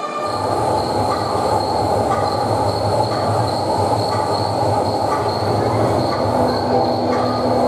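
Recorded sound effect from the mime's backing track, cutting in abruptly as the music stops: a steady, dense low noise with a faint high whine held above it.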